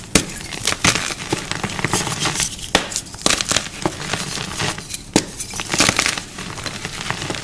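Irregular crunching and crackling: something brittle being crushed, with a few sharper snaps among the steady crackle.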